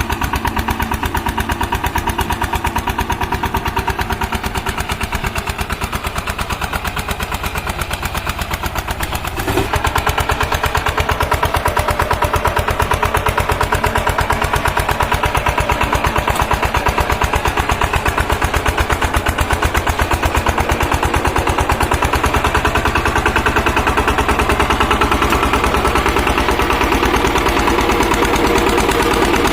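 Shakti power tiller's single-cylinder diesel engine running with a steady, even chug; about a third of the way in it gets louder and stays there, as the engine picks up speed or takes on load.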